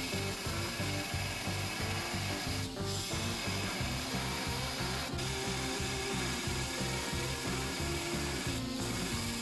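Background music with a steady, rhythmic bass beat and a melodic line.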